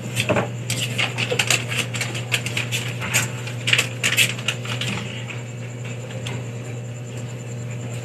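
Quick light clicks and rustles of hands handling paper and a TV remote, thickest in the first half and dying away after about five seconds, over a steady low hum.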